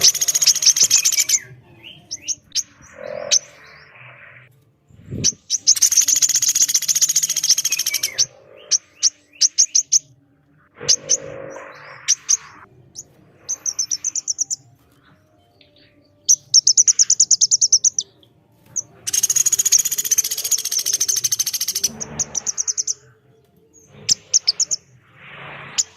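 Pelatuk beras and female korlap calling in turn: long, harsh, buzzy rattling trills alternating with runs of fast, sharp, high repeated notes. A brief low thud about five seconds in.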